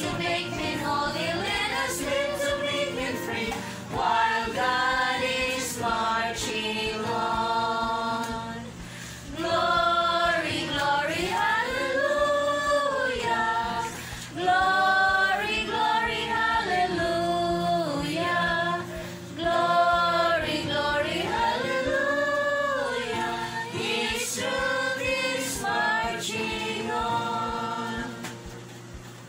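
Voices singing a song in sustained phrases over a musical accompaniment, fading out near the end.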